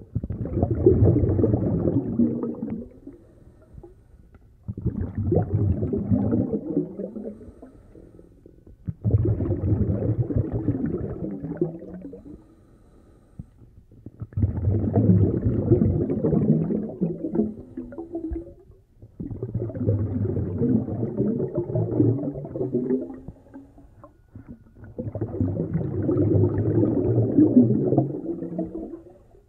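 Muffled underwater rumbling picked up through a GoPro's waterproof housing, coming in surges of three to four seconds about every five seconds, with short quieter gaps between.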